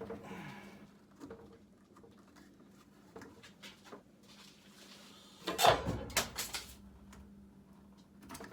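Workshop handling noises: light knocks and rustles, then a louder clatter of several sharp strikes about five and a half seconds in, over a steady low hum.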